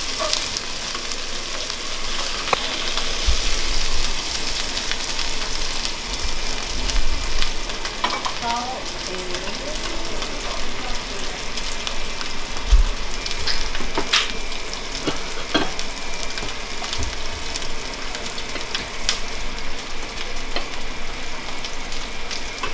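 Shrimp, garlic and shrimp paste sizzling in hot oil in a stainless steel pan on a gas burner, a steady crackling hiss. A few sharp clicks stand out about two-thirds of the way through.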